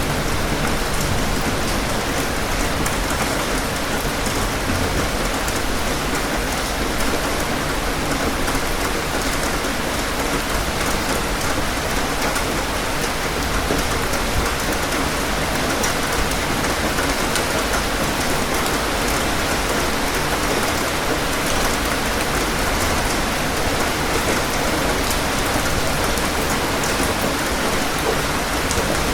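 Steady rain falling on a surface: an even, unbroken hiss of many drops.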